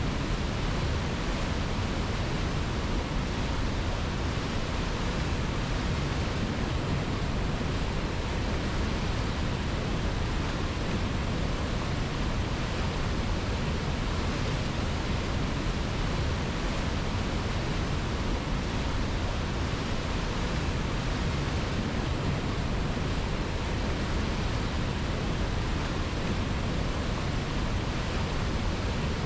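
River water rushing in a steady, unbroken stream.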